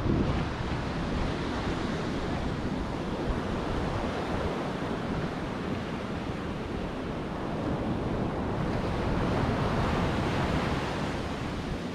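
Surf washing on a beach, with wind buffeting the microphone; the wash swells a little near the end.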